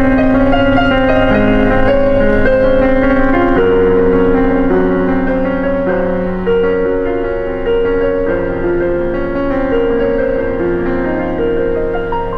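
Background music on keyboard: a slow line of held notes over sustained chords, the notes changing every second or two.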